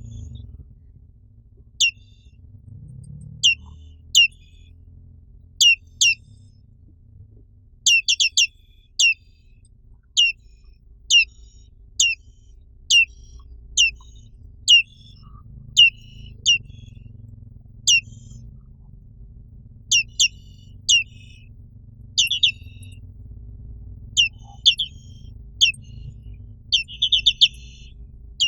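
Black-capped white-eye (Zosterops atricapilla) calling: short, sharp chirps that fall steeply in pitch. They come singly or in quick runs of two to four, roughly one a second, over a faint low hum.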